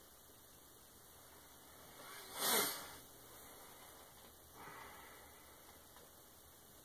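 A person's loud, sharp breath noise, a hissy burst under a second long about two and a half seconds in, followed about two seconds later by a softer breath.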